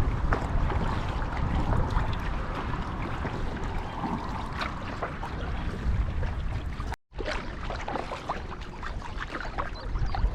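Water splashing and trickling around a canoe under paddle, with wind rumbling on the microphone. The sound drops out abruptly for a moment about seven seconds in, then resumes with more small splashes and drips.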